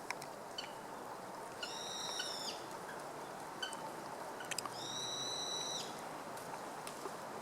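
Japanese green woodpecker giving two long, high-pitched calls, each about a second long, the second starting about three seconds after the first, with faint scattered ticks between them.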